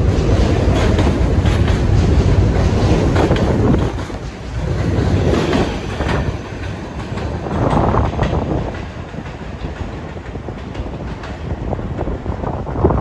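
New York City subway train running on the track, its wheels clattering over rail joints. The heavy rumble is loudest for the first few seconds, then dips and swells again twice as it eases.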